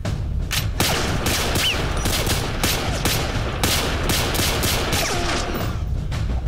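A rapid string of handgun shots, about two or three a second, fired one after another.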